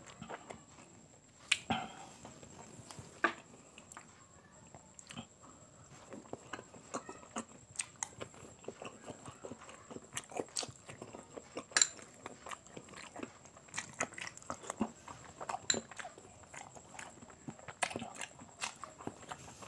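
A person chewing quail balut with the mouth close to the microphone: wet chewing with many irregular sharp smacks and clicks.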